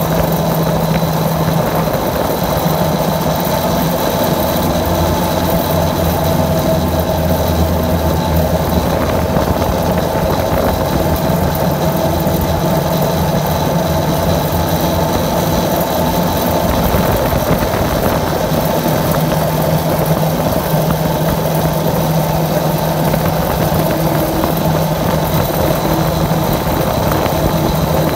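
A motor running steadily, with a low hum that shifts a little in pitch over a higher steady whine.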